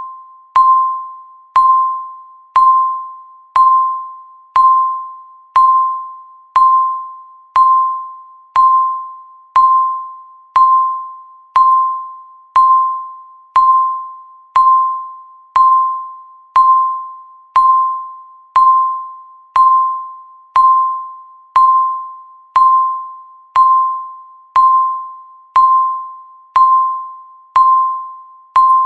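Countdown timer beeping once every second: a short, clear electronic ping that starts sharply and fades before the next one, about 29 in a row at an even pace.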